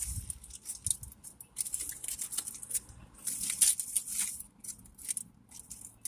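Paper food wrappers and a takeout bag rustling and crinkling as they are handled, in irregular bursts with short pauses.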